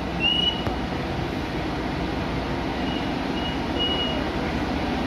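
CC 300 diesel locomotive running with a steady low rumble as it creeps slowly forward. A short high beep sounds near the start, and three more come between about three and four seconds in.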